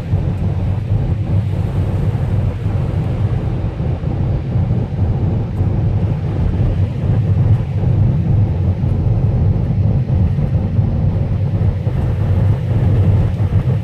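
Steady low rumble of a car driving at road speed: engine and tyre noise on a wet road.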